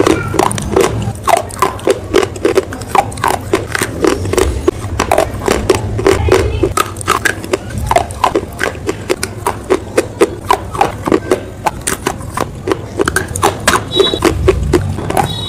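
Close-miked crunching and chewing of dry, brittle chalk-like bars: a quick, uneven run of sharp crunches, several a second.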